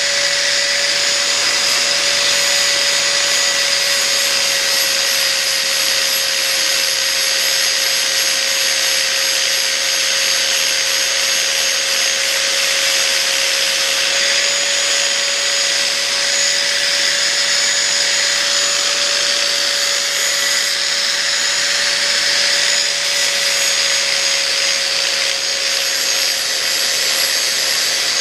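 Angle grinder running steadily, its disc grinding across a sheet of 1018 mild steel: a constant motor whine under the hiss of abrasive on metal.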